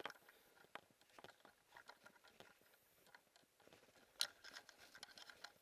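Faint, irregular crunching of footsteps in snow, with a louder cluster about four seconds in.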